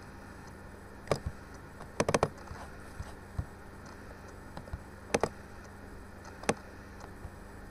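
Computer mouse clicking: scattered sharp clicks, with a quick run of clicks about two seconds in and a double-click about five seconds in. A steady low electrical hum runs underneath.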